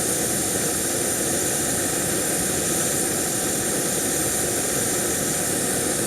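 Backpacking gas canister stove burning at full flame, a steady loud roar with a faint whine in it.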